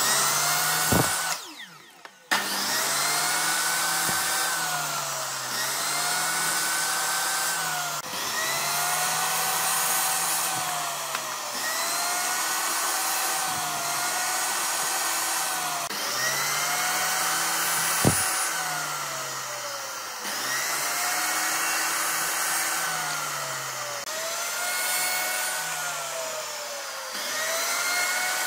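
Handheld electric power tool running on wood, its motor starting about two seconds in. The pitch rises and falls in a regular cycle about every two seconds, and there is a sharp knock partway through.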